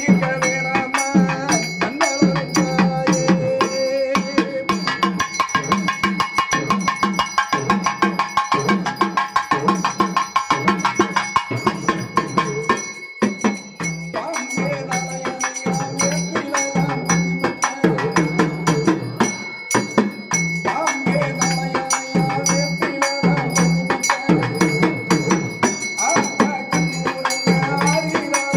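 A man singing a Tamil devotional song to the goddess Amman into a microphone, over a steady drum beat.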